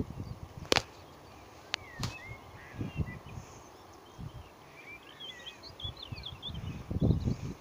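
Songbirds twittering in short, quick phrases, busiest in the second half, over wind rumbling on the microphone that surges near the end. Two sharp clicks come in the first two seconds.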